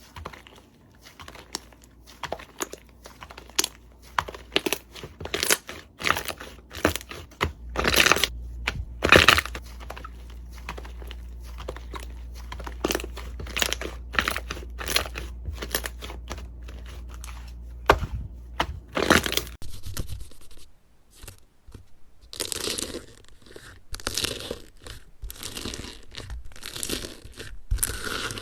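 Hands squeezing and working crunchy slime, giving a run of sharp crackles and pops. About 20 seconds in, the texture changes to a denser crinkling and squishing.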